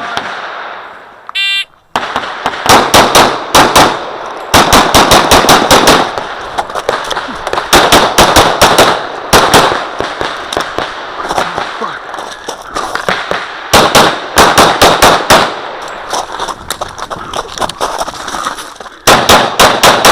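A shot-timer beep about a second and a half in, then a Glock 35 .40 S&W pistol firing in fast strings of several shots each, with short gaps between the strings.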